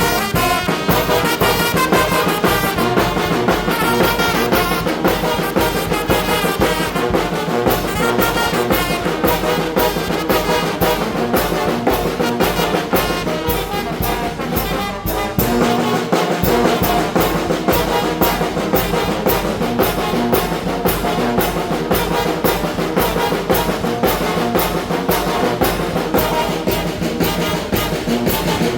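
Mexican brass banda playing a huapango, with trumpets and trombones over a steady beat. The band drops out briefly about halfway through.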